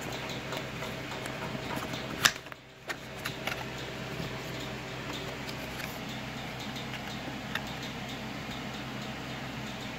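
Cardboard phone box and paper packaging handled by hand: light ticks and scrapes, with one sharp click about two seconds in, over a steady background hum.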